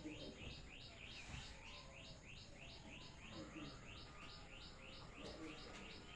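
A bird chirping in a fast, even run of short high chirps, about four a second.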